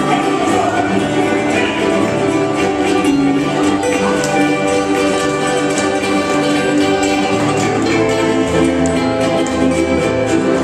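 Hawaiian band playing live, with strummed ukuleles over a bass line that steps between notes.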